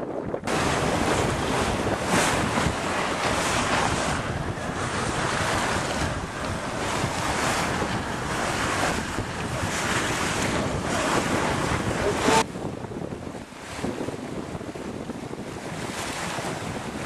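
Wind buffeting the microphone over water rushing past a Morgan 30 sailboat's hull under sail. It starts abruptly about half a second in and drops suddenly to a quieter wind and water hiss about twelve seconds in.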